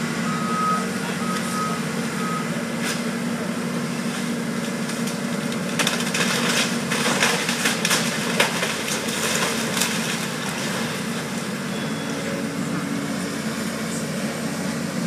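Caterpillar hydraulic excavator's diesel engine running steadily while it demolishes a wood-frame house, with a cluster of cracking and crunching debris impacts from about six to ten seconds in. An interrupted beeping, like a backup alarm, sounds during the first two seconds.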